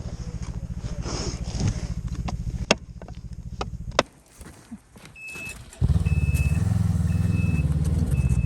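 Snowmobile engine idling with a pulsing beat and a few sharp clicks; it drops away about four seconds in. Near six seconds a snowmobile engine starts up and runs louder, with a short high beep repeating about once a second, the reverse warning beeper.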